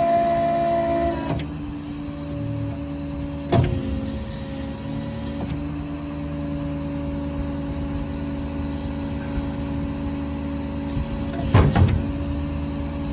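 IMT 1015 service-truck crane running under its controls: a steady motor whine stops about a second in, leaving a steady low running hum, with two sharp clunks, one about 3.5 seconds in and one near the end.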